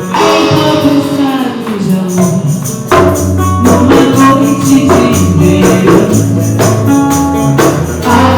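Band music playing: a steady percussion beat over held bass notes and a moving melodic line.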